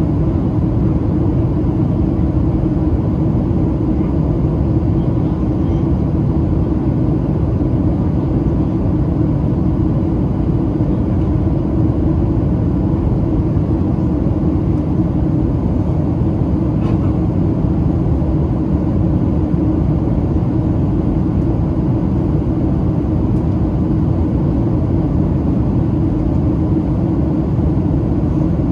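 Steady in-flight cabin noise of a Boeing 737-700, heard from a window seat beside the wing: the rush of airflow and the low hum of its CFM56-7B turbofan engines, with a faint steady whine above them.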